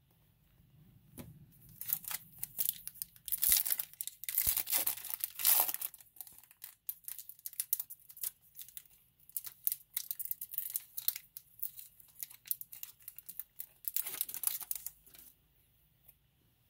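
A Topps Chrome trading-card pack's wrapper being torn open and crinkled, in irregular bursts of tearing and rustling that die away about a second before the end.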